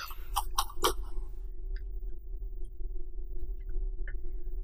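Soldering iron tip jabbed and wiped in a brass-wool tip cleaner: a quick run of scratchy clicks in the first second. Then a faint steady hum with a few light ticks.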